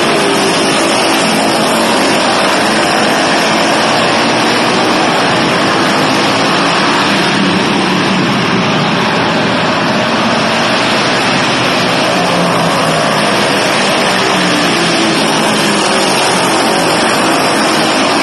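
Several pull-start racing minibikes' small engines running together on the track, a steady, loud, overlapping drone that wavers in pitch as the riders work the throttle, echoing in the arena hall.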